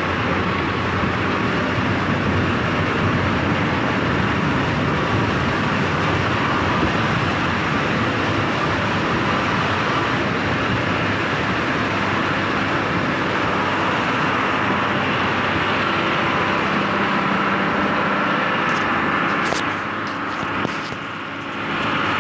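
A vehicle driving through a shallow river: a steady, even rush of engine and river water churning around the wheels. Near the end there are a few sharp clicks and a short drop in level as the camera is handled.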